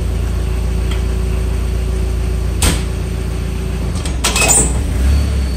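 New Holland L175 skid loader's diesel engine running steadily. A sharp metal clunk comes about two and a half seconds in and a rattle of clunks a little after four seconds in, as the quick-attach latch is shifted from the cab.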